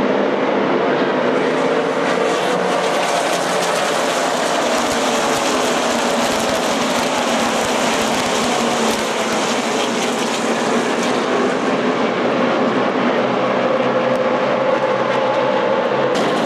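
A field of NASCAR Sprint Cup stock cars at racing speed, their pushrod V8 engines merging into one loud, steady sound with shifting engine notes as the pack goes by.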